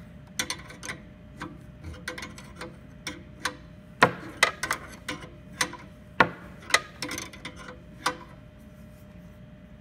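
Steel open-end wrenches clicking and clinking against the brass flare-nut fittings of a filter dryer as the nuts are tightened: an irregular string of sharp metallic clicks, the loudest about four and six seconds in, thinning out near the end.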